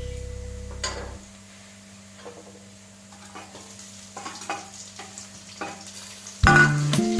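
Food sizzling in a frying pan as it is stir-fried, with a spatula scraping and clacking against the pan every half-second to second. Background guitar music fades out in the first second and comes back loud near the end.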